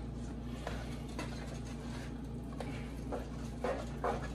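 A spoon stirs partly frozen broccoli in a metal pot, giving scattered light clicks and scrapes as the pieces knock against each other and the pot. A steady low hum runs underneath.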